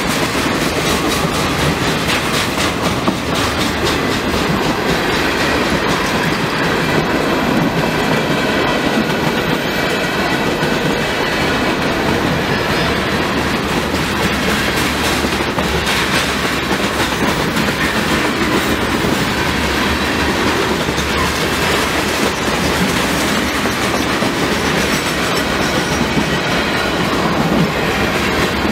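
Railroad cars rolling steadily past, the wheels clicking over the rail joints.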